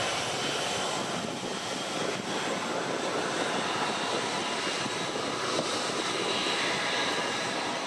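A Fokker 70's two Rolls-Royce Tay turbofans running as the jet rolls along the runway, a steady jet rumble with a faint high whine on top.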